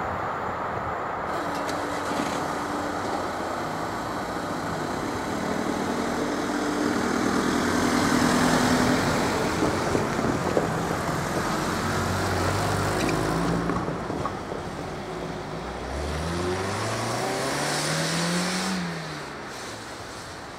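Road traffic driving over the crossing: a van passes about midway with a steady engine note, and near the end a car accelerates, its engine note climbing for a few seconds and then dropping.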